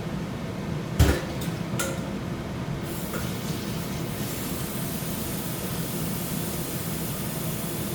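Steam hissing steadily from a pot of steaming green beans, building from about three seconds in, over a constant low hum. A sharp knock of cookware about a second in is followed by a couple of lighter clicks.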